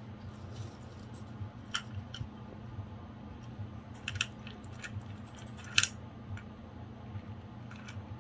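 Golden hamster moving through crinkled-paper bedding and into a clear plastic dish, making scattered small clicks and crackles, the loudest a little past halfway, over a steady low hum.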